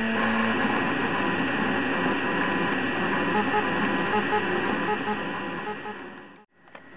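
Prusa i3 3D printer printing, its stepper motors sounding short whining tones that jump in pitch as the print head moves, over the steady hum of the hotend cooling fans. The sound fades out near the end and comes back up.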